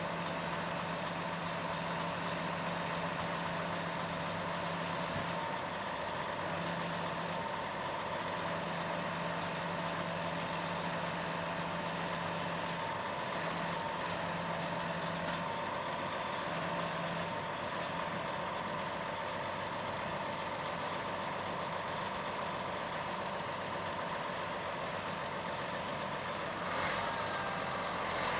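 Diesel engine of a large John Deere four-wheel-drive tractor running steadily under load as it pulls a drainage tile plow through hard, dry soil.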